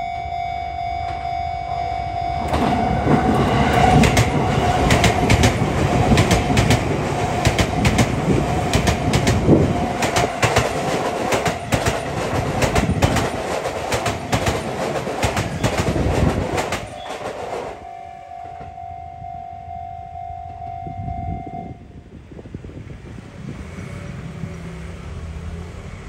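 A Sotetsu 11000 series electric train passes over a level crossing, its wheels clattering over the rail joints for about fifteen seconds. The crossing's warning bell rings steadily throughout, keeps ringing after the train has gone, and stops a few seconds later.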